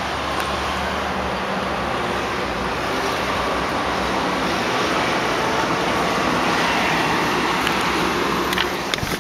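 1999 Nissan Sentra SE Limited's engine running steadily at idle just after start-up, with a few light clicks near the end.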